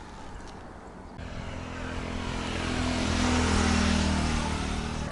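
A motor vehicle's engine comes in about a second in and grows steadily louder with rising road noise, peaking past the middle and easing a little near the end, as a vehicle approaching and passing close by.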